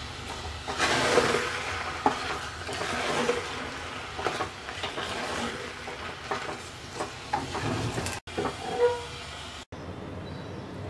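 Wooden spatula stirring thick khichuri in a pressure cooker pot, with irregular scrapes and knocks against the metal sides, busiest in the first few seconds. The stirring stops near the end.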